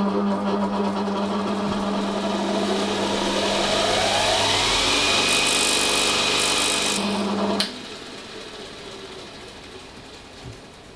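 Power grinder grinding into a piece of a broken zinc-alloy pot handle to expose bare metal. It runs steadily with a whine that rises in pitch midway, then cuts off suddenly about seven and a half seconds in, leaving a quieter noise that fades away.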